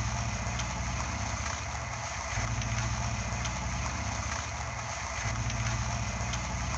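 Small motor running steadily: a low hum with a whirring hiss above it, swelling slightly now and then.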